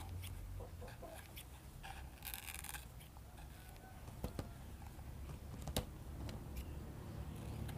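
Scissors snipping through the edge of a rolled banana-leaf cone: a few sharp snips and clicks, with a longer crackly cut a little over two seconds in.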